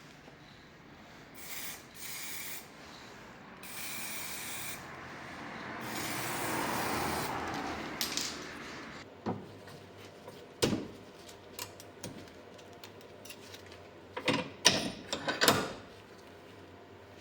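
Aerosol spray can of clear coat sprayed in several short hissing bursts, then a few knocks and clatters from the can or bike parts being handled near the end.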